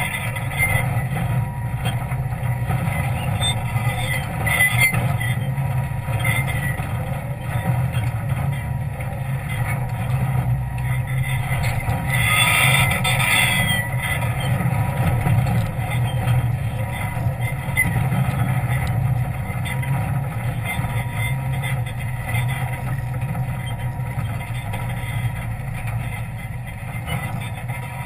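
Jeep engine running at low speed under load as it crawls over a rocky trail, with a steady low drone and a brief louder rush of hiss about twelve seconds in.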